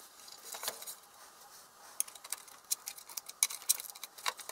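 Scattered small clicks and taps of hands handling the metal housing of an aircraft vertical gyroscope, turning the unit and working at a panel on its side; the clicks come thicker from about halfway in.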